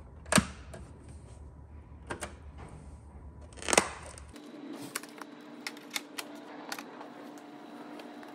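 Plastic clicks from a Panasonic RX-D10 boombox being handled: a sharp button click near the start, a couple of light clicks and a louder clack as the cassette door is popped open. After that comes a faint steady hum with a string of small plastic clicks as a cassette tape case is opened.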